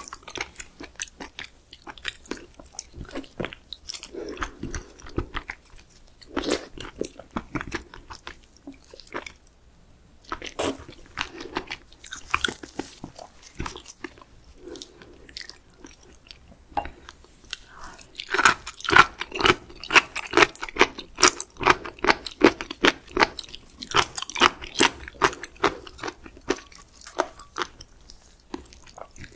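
Close-miked chewing of raw seafood, wet smacking and crunching bites, with short pauses in the first half and a long run of faster, louder chewing from about two-thirds of the way in.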